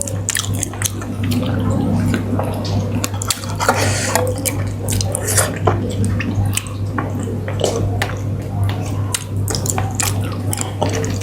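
Close-miked eating sounds: wet chewing and smacking with many short clicks as fish curry and rice are eaten, over a steady low hum.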